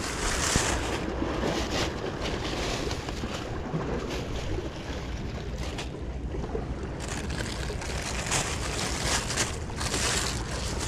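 Wind buffeting the microphone with a low rumble, over the wash of sea waves against rocks.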